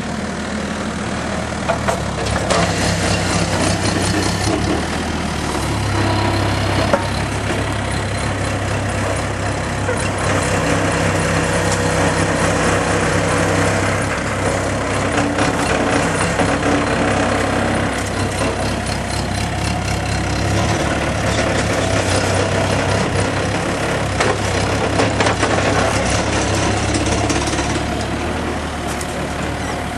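Heavy engine running steadily, likely excavation or sewer-work equipment, its tone shifting a few times, with scattered clicks and knocks over it.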